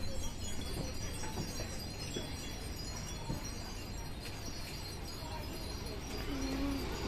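Metallic chiming over a steady background of market noise.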